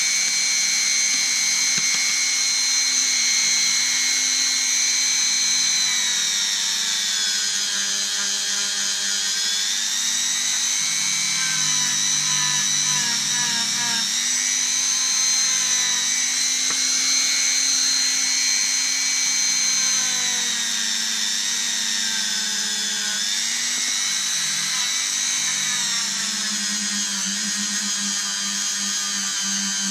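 Dremel rotary tool running at high speed with a small wheel held against a boxwood-and-brass folding rule. Its whine sags in pitch as it is pressed in, about six seconds in and again about twenty-one seconds in, and each time recovers.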